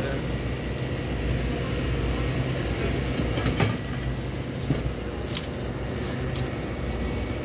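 A steady low mechanical hum, with a few sharp clicks and knocks a few seconds in as a styrofoam cooler lid is handled and lifted.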